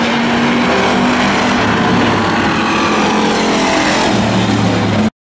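Demo race cars' engines running hard around an oval track, a loud steady drone that cuts off abruptly near the end.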